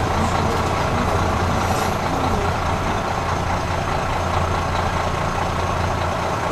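KiHa 54 diesel railcar rolling slowly to a stop at a station platform, then standing with its diesel engine idling in a steady low hum.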